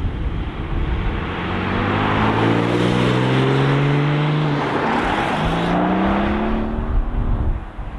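A sports car's engine accelerating hard, its pitch climbing through one gear, dropping briefly at an upshift about five seconds in, then climbing again before it fades away.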